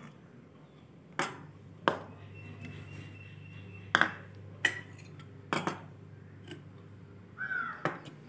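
Stainless-steel bowls, plates and a spoon being handled and set down on a table: a string of sharp clinks and knocks, one left ringing briefly, and a short scrape near the end, over a low steady hum.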